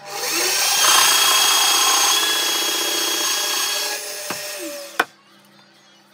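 Pillar drill motor spinning up, then a forstner bit boring into an oak block for about three seconds. The drill slows and winds down, with a single sharp click about five seconds in.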